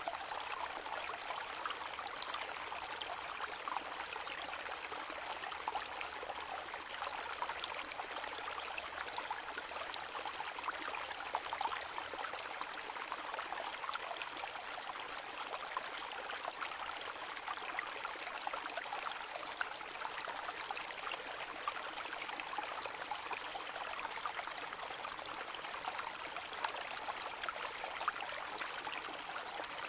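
Calm brook: a shallow stream trickling and babbling steadily, with many small splashes and gurgles.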